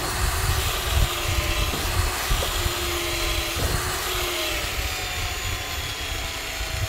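Small electric winch motor whining steadily under load as it hauls a mini truck toward the trailer, over a low rumble; the whine fades out about four and a half seconds in.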